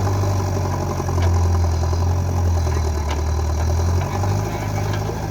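Diesel engine idling with a steady low hum; its note drops lower for about three seconds in the middle, then comes back up.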